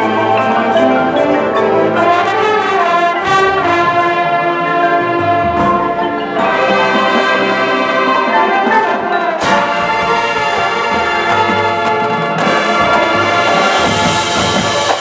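Marching band's brass section playing sustained, swelling chords with a drumline underneath. The sound changes sharply about nine and a half seconds in, and a cymbal wash builds near the end.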